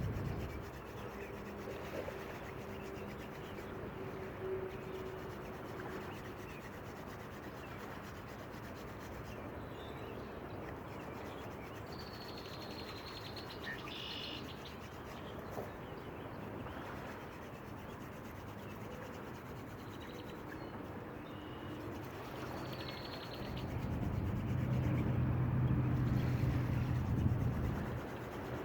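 Wooden hand-drill spindle spun between the palms, rubbing steadily in the hearth board in an attempt to raise an ember, with short bird chirps now and then. A louder low hum comes in near the end.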